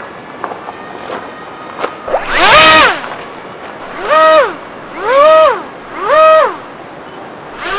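The electric motor and propeller of a small foam FPV wing are revved in four short throttle blips. Each whine rises in pitch, holds about half a second and falls away. A few light handling knocks come before them.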